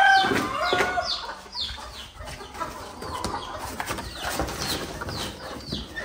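Chickens clucking, loudest in the first second, over a run of high, falling peeps from chicks repeating about twice a second.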